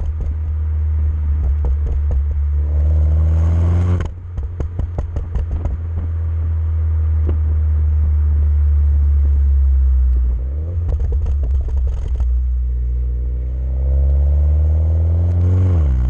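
MINI F56 John Cooper Works turbocharged four-cylinder engine through a Maxi-Tuner Hexagon valved rear silencer. The revs rise and are cut off sharply about four seconds in, followed by a run of crackles and pops on lift-off. More crackling comes a little past halfway, then the revs climb again near the end.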